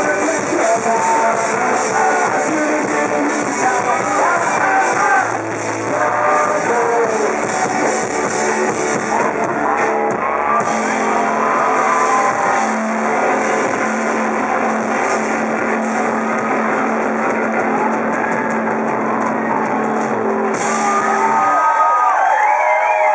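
Live rock band playing loud, with guitars and singing, on a rough, distorted audience recording. The music cuts off about three quarters of the way through the final seconds, and the crowd cheers and whistles.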